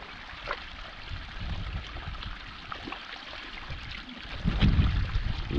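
Shallow muddy water running steadily, with a few soft splashes and knocks as hands push mud and stones into the flow. A low rumble builds near the end.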